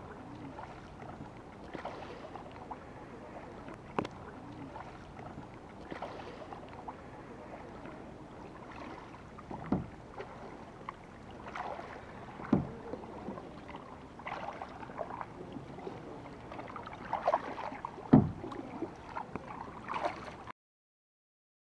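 Kayak paddle strokes dipping and splashing in lake water over a steady faint wash of outdoor noise, with a few louder thuds. The sound cuts off suddenly near the end.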